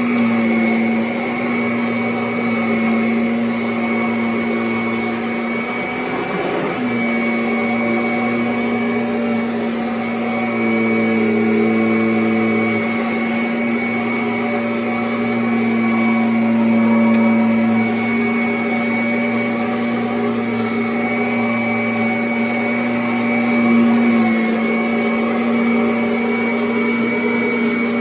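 Kirby Avalir 2 upright vacuum cleaner running steadily: a continuous motor hum with a high whine over it, with a brief unsteadiness about six seconds in.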